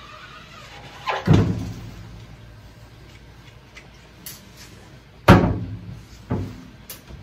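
Hollow knocks of a metal scoop coater and a wooden screen frame being handled while coating a screen with emulsion: one about a second in, a louder one about five seconds in, then two lighter ones, each with a short ring.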